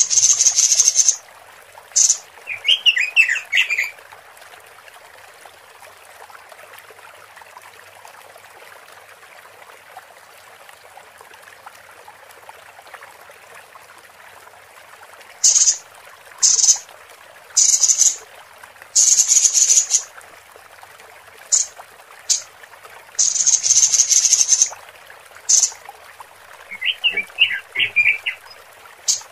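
Female Pekin robin (red-billed leiothrix) calling: repeated harsh, hissing buzz calls of varying length, with a quick twittering phrase twice. There is a long pause with only faint hiss in the first half, and the buzz calls come thick and fast in the second half.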